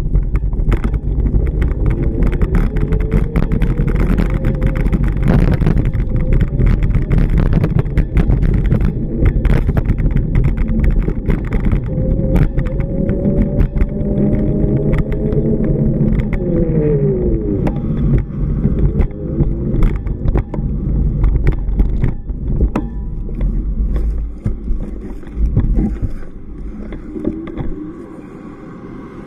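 Road traffic on a busy town street: a steady rumble of engines and tyres, with vehicle engines rising and falling in pitch as they pass, most clearly in the middle; the traffic eases off near the end.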